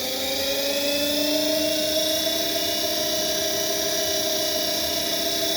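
Universal motor of an old front-loading washing machine, driven by a thyristor speed controller with no load, whining up in pitch as it is brought to running speed, then holding a steady whine.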